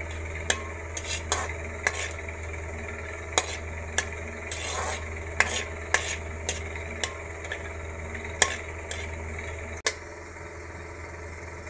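A metal spatula scrapes and taps irregularly against a steel kadhai as whole spices are tempered in hot oil, with a light sizzle and a steady low hum underneath. Near the end the sound drops suddenly and the tapping mostly stops.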